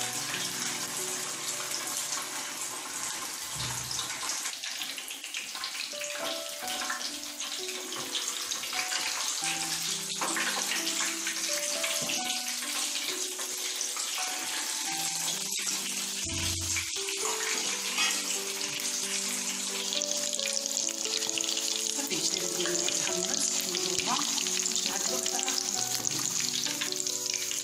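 Whole pre-cooked chicken frying in hot oil in a pan, a steady sizzle, as it is browned for mhammer, with background music playing a melody throughout.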